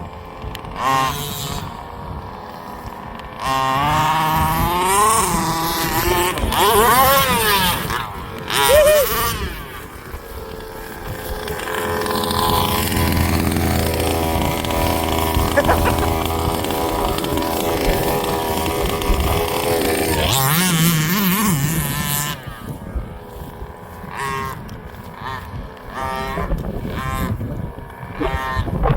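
Large-scale RC car's two-stroke petrol engine revving, its pitch repeatedly rising and falling, with a long steady high-revving run in the middle.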